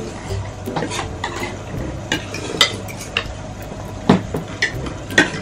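Spoons and forks clinking and scraping against plates and a glass serving bowl of sinigang during a meal, in scattered sharp clicks, the loudest about four seconds in and near the end.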